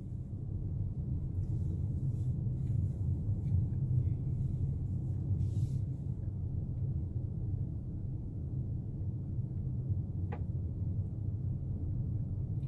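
Steady low rumble of a car's tyre and engine noise heard from inside the cabin while driving along a paved road.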